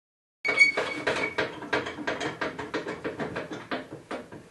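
Table saw's blade-tilt handwheel being cranked, its bevel gearing clicking rapidly, about four or five clicks a second, as the blade tilts over from 90 degrees. The clicks start about half a second in and fade near the end as the blade nears the angle.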